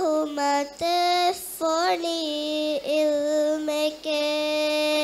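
A young girl singing a Maldivian raivaru unaccompanied into a handheld microphone: long held notes with slides between them, the last held note ending right at the close.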